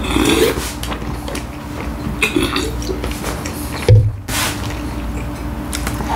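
Eating sounds from a mouthful of chicken sandwich being chewed, with scattered short squishy noises and one sharp thump about four seconds in.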